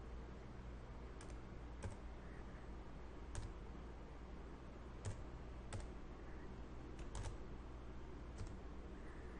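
Computer keyboard being typed on slowly: about eight separate keystrokes, unevenly spaced, over a faint steady low hum.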